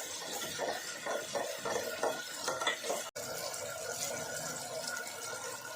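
A spatula stirring sauce in a pan, a run of short scraping strokes over the steady sizzle of hot oil. The sound cuts out for an instant about three seconds in, after which only the sizzle goes on.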